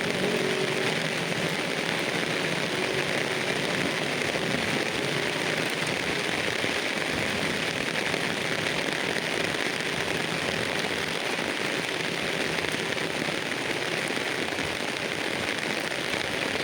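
Steady rain falling on rainforest foliage, an even hiss with no break.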